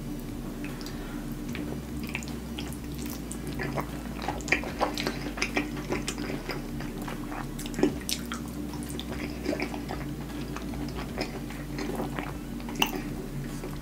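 Close-miked wet eating sounds: lips smacking and soft sauce squelches with sharp mouth clicks as forkfuls of a cheesy white-sauce casserole are taken and chewed. A steady low hum runs beneath.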